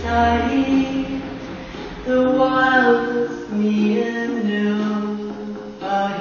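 A singer's voice through a microphone, holding long notes that step up and down, over recorded backing music.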